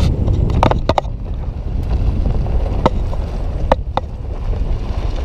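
Car driving, heard from inside: a steady low road and engine rumble, with a few sharp knocks or rattles, several near the first second and two more later.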